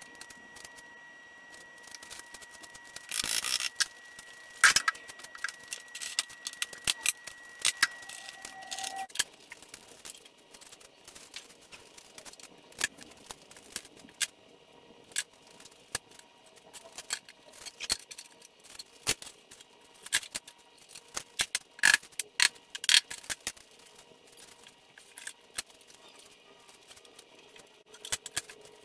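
Scattered clicks, knocks and clatter of hand work: bar clamps being tightened on a glued-up slab panel, with a short rasping burst about three seconds in, then small tools handled on the wooden tabletop. A faint steady whine stops about nine seconds in.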